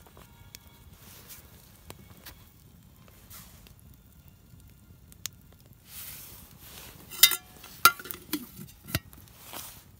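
Campfire cooking: food frying with a light sizzle, and a few sharp metallic clinks of cookware or utensils in the second half.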